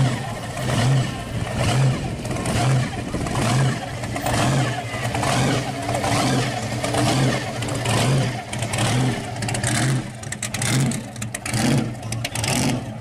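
Supercharged V8 of a 1957 Chevrolet Bel Air running at low speed with a lumpy, rhythmic lope, pulsing about twice a second.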